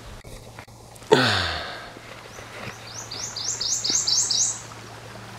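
A songbird singing a quick run of about seven high, repeated notes, some four a second, after a loud, brief sound about a second in that glides down in pitch.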